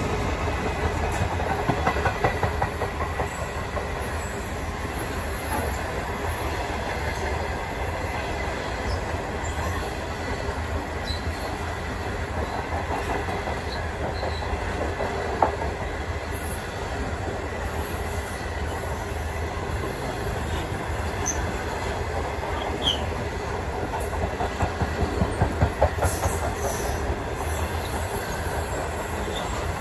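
Stainless-steel passenger carriages of a long train rolling past, their steel wheels rumbling steadily on the rails. The wheels clack over rail joints in short runs near the start and near the end, with a single sharp clack in the middle.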